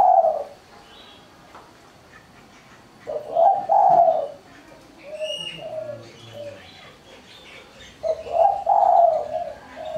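Spotted dove (tekukur) cooing in its small, high 'mersik' voice. It gives two full phrases, about 3 and 8 seconds in, each a loud drawn-out coo followed by a few shorter, softer notes. A brief high chirp comes about 5 seconds in.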